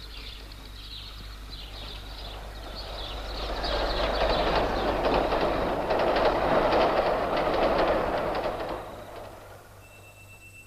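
A train passing. Its rumble builds over a few seconds, then fades, with a rapid clickety-clack of wheels over rail joints at its loudest.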